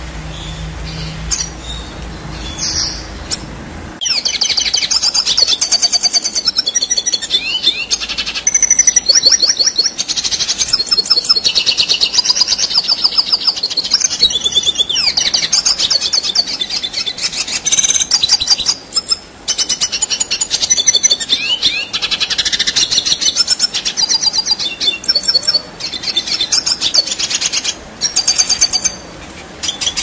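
Red siskin singing a long, rapid twittering song full of trills, with a few brief pauses. It starts suddenly about four seconds in, after a low hum with a few clicks.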